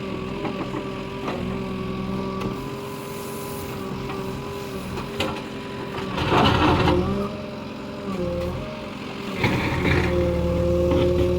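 Backhoe loader's diesel engine running steadily, with a loud burst of noise about six seconds in. The engine sound grows stronger and fuller near the end, as it comes under heavier load.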